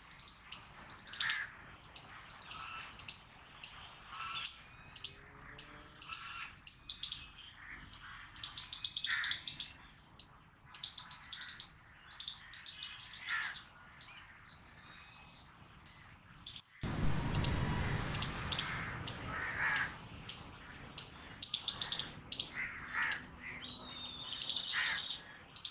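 Squirrel barking: short, sharp high-pitched alarm calls repeated about once or twice a second, breaking now and then into quick rapid runs of chatter. A stretch of low rumbling noise runs under the calls about two-thirds of the way through.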